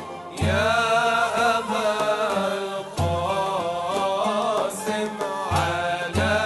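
Arabic religious inshad: male voices sing a winding, melismatic melody over deep frame-drum beats, with a string and percussion accompaniment.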